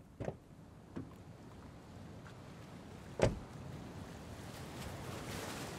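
A car door: a couple of light clicks from the latch and handle, then a single solid slam about three seconds in. After it, the rushing wash of sea surf swells up.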